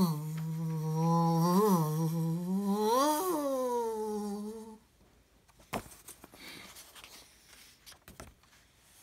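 A man humming with his mouth closed for about five seconds: a low, mostly steady note that lifts briefly twice. Then paper pages of a book rustle and flip with a few soft clicks.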